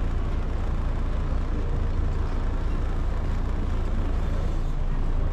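Canal tour boat's engine running steadily with a low drone, heard from on board.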